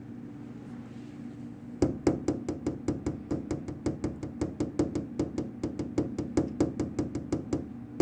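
A rapid, even run of sharp clicks or taps, about five a second, starting about two seconds in and stopping shortly before the end, over a steady low hum.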